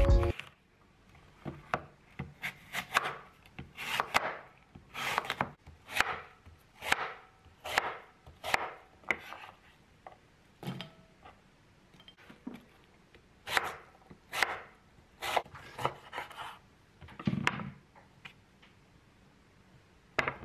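Knife slicing apples into chunks on a wooden cutting board: about twenty cuts, one or two a second, with a short pause midway.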